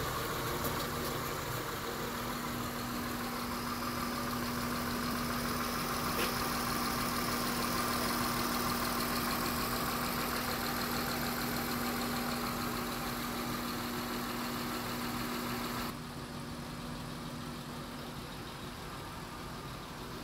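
Honda Accord 3.0-litre VTEC V6 engine idling steadily. About three-quarters of the way through the sound becomes quieter and duller.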